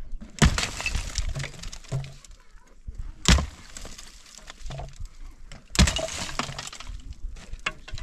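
Pickaxe striking hard, stony ground three times, about two and a half seconds apart. Each blow has a sharp crack and is followed by loose rock and shale clattering.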